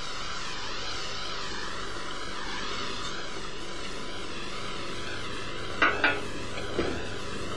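Steady sizzling hiss from a hot pot of browned duck and veal stock as demi-glace is poured in, with a short clink of a utensil against the pot about six seconds in.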